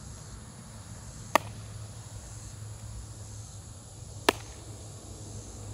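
Baseball smacking into gloves in a game of catch: two sharp pops about three seconds apart, the second a catch in a new Rawlings Rev1X glove.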